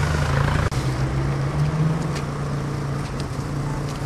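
Car engine running close by, a steady low hum that wavers slightly in pitch, with a single sharp click just under a second in.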